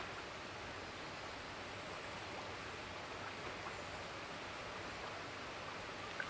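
Steady rushing of river water flowing past, with one small click just before the end.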